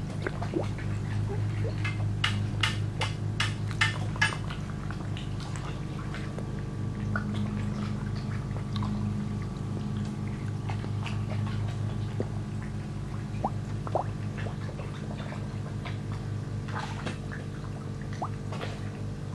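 Carp sucking and slurping feed pellets at the water surface, with wet smacks and small splashes, in a quick run about two to four seconds in and scattered after. A steady low hum runs underneath.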